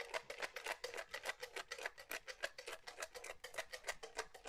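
Deck of cards being shuffled by hand: a fast, even run of soft clicks and slaps, about eight to ten a second.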